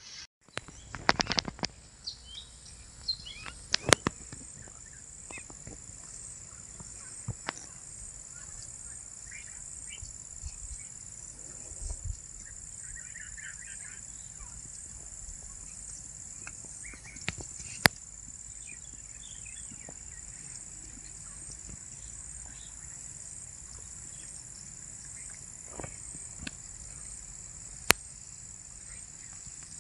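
Open-country ambience: scattered bird chirps over a steady high-pitched drone, with a few sharp clicks.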